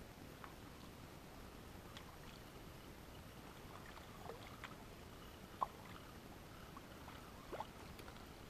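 Faint water lapping and dripping around a canoe, with a scatter of small drips and plops, the clearest about five and a half seconds in and another near the end.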